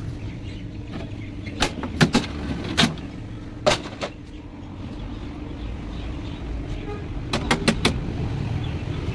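A series of sharp knocks: five spread over the first four seconds, then a quick run of four about seven and a half seconds in. Under them runs a steady low rumble of traffic or an engine.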